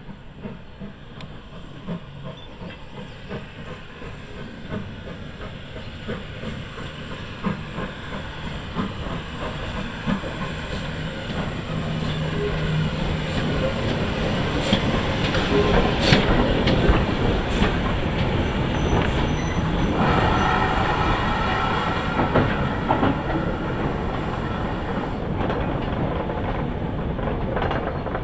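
Great Western Railway prairie tank steam locomotive drawing a short goods train past, growing louder as it approaches, with steam hissing and the wagons' wheels clicking and clanking over the rail joints as they roll by.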